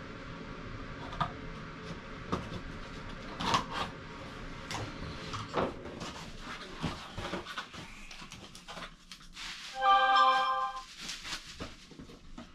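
Cardboard shipping box being opened and its packing handled: rustling, scraping and sharp knocks of cardboard, with a brief steady squeal about ten seconds in.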